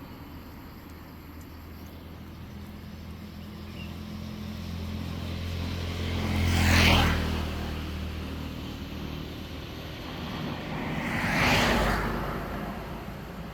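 Two road vehicles passing by one after the other: the first, with an audible engine hum, grows louder to a peak about seven seconds in and fades; the second swells and fades about four seconds later.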